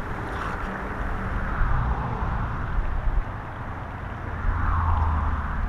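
Steady rush of a flowing river, with wind buffeting the microphone in low rumbling gusts that swell about four to five seconds in.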